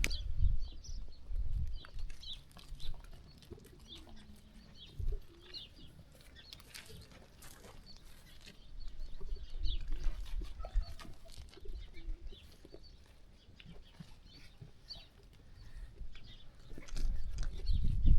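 Farmyard ambience: birds cooing and chirping, over a low rumble that swells and fades several times.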